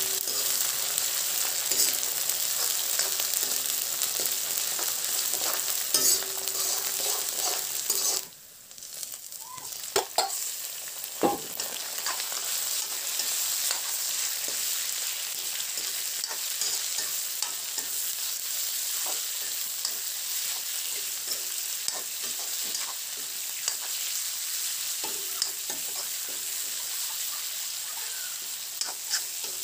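Food frying in oil in a metal kadai, sizzling steadily while a metal ladle stirs and scrapes the pan: onions and spices at first, then raw pork pieces. About eight seconds in the sizzle drops away for a moment, and a sharp knock comes a few seconds later.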